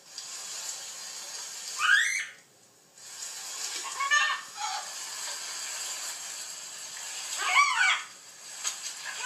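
Three short, pitched animal calls, each bending up and down in pitch: one about two seconds in, one around four seconds, and one near the end, over a faint steady hiss.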